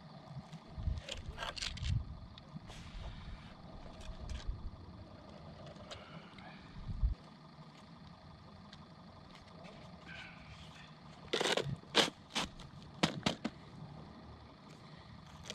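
Plastic clicks and knocks of a round thermal ice-fishing tip-up being set over a hole, with a dull thud about halfway and a quick cluster of sharp clicks about two-thirds of the way through.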